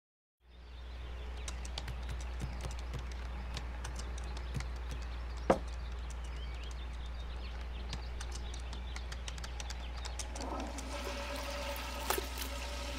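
Steady low hum of room ambience under a faint hiss, with scattered small clicks and one sharper click about five and a half seconds in. Near the end, water starts running from a sink tap.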